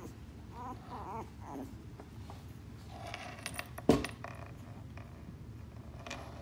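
Three-week-old West Highland White Terrier puppies making small wavering whimpers and squeaks, a few short calls. One sharp knock comes about four seconds in.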